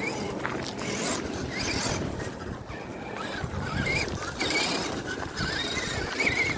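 Electric drive motor and gears of an FTX Kanyon RC crawler whining, the pitch rising and falling as the throttle is worked. The tyres crunch and click over loose rocks.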